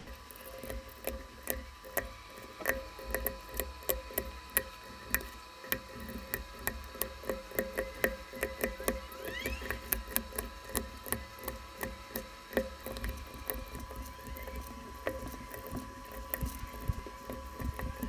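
Keycaps being pressed one by one onto the low-profile optical switches of a Keychron K3 keyboard: a run of sharp plastic clicks and clacks, a few a second at an uneven pace, over a faint steady tone.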